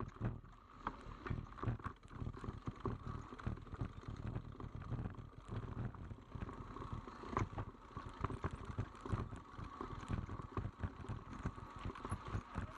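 A mountain bike rattling over a rough, technical trail: a dense run of irregular knocks and clicks over a low rumble.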